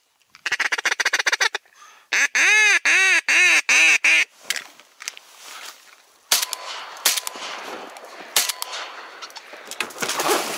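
Duck quacking: a quick chattering run, then six loud quacks in a row. From about six seconds in, shotgun shots: three sharp reports, the first the loudest, at a duck passing overhead.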